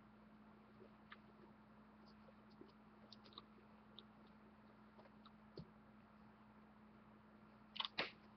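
Near silence: quiet room tone with a faint steady hum and scattered faint clicks, then two louder sharp clicks close together near the end.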